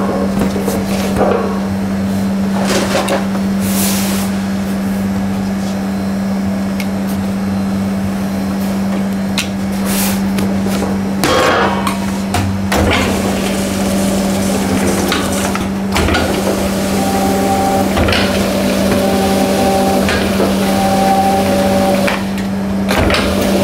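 A steady machine hum under thumps and taps of laminated dough being handled on a wooden bench. In the last third, a dough sheeter's motor runs in short spells, starting and stopping every second or two.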